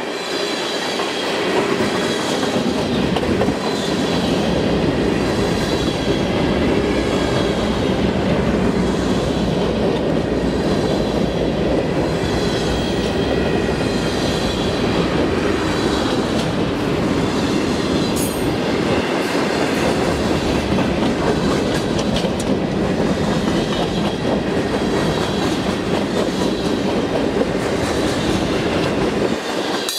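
Freight cars of a long mixed freight train, covered hoppers and tank cars, rolling past. Their steel wheels make a steady, unbroken rumble on the rails.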